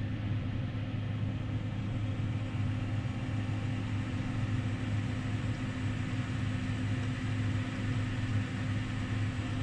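Diesel engine of harvest machinery running steadily, an even low drone with no change in pitch.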